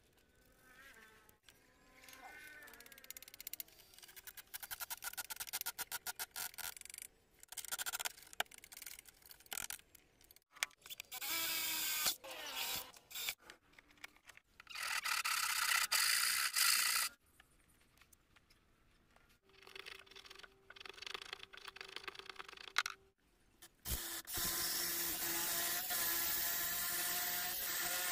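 Hand woodworking and a power drill in turn: a saw cutting wood in quick back-and-forth strokes, then an electric drill boring into wood in several runs, each a steady motor whine with the bit chewing through the wood.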